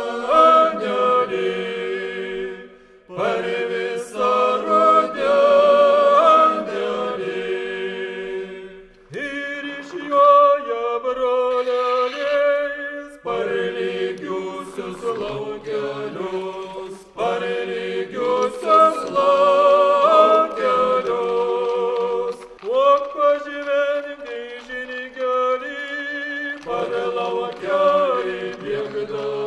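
A group of voices singing a Lithuanian folk song together in harmony, in phrases of about four seconds with short pauses for breath.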